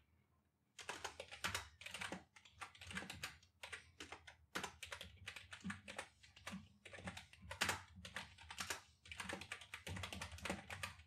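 Typing on a computer keyboard: a fast, uneven run of key clicks starting about a second in, with short pauses between bursts of keystrokes.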